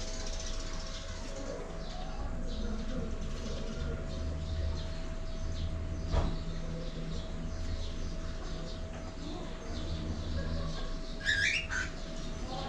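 Cockatiels chirping softly in their cage over a steady background hum, with a knock about halfway through and two sharp chirps near the end.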